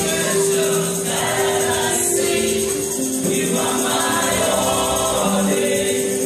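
Gospel worship song sung by many voices together, with long held notes and a tambourine jingling.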